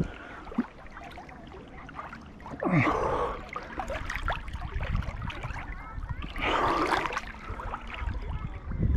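A swimmer's heavy breathing, with two loud puffing breaths about three and seven seconds in, over water sloshing and splashing right at the microphone.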